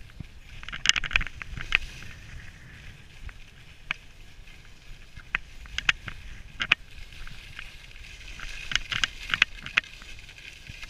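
Skis sliding and carving over groomed snow: a scraping hiss that swells and eases through the turns, with sharp clicks and knocks scattered through it, thickest about a second in and again near the end, over a low wind rumble on the microphone.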